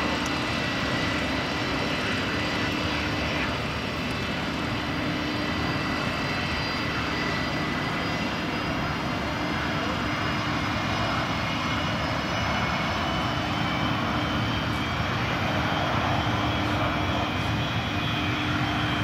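Aquila A210 light aircraft's Rotax four-cylinder piston engine and propeller running with a steady drone as the plane rolls along the runway.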